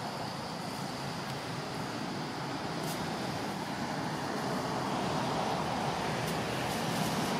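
Steady rushing outdoor background noise, with a faint click about three seconds in. No monkey cries are heard.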